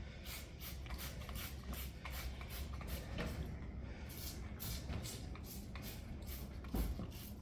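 Soap-and-water lubricant being rubbed onto a tire bead: a faint rhythmic swishing of about four strokes a second, with one dull thump near the end.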